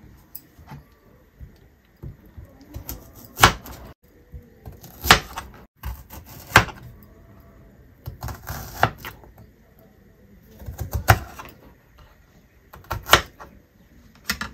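Knife cutting an onion: about six sharp knocks of the blade, one every second and a half to two seconds, with softer ticks of slicing between them.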